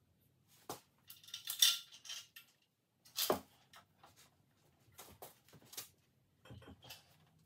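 Scattered metallic clinks and knocks of hand tools and loose engine parts being handled, with a ringing clatter about a second and a half in and a sharper knock a little after three seconds.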